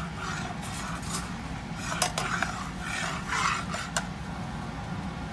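Metal fork stirring and scraping molten caramelized sugar in a frying pan, with a few sharp clinks of the fork against the pan about two seconds in and again near four seconds.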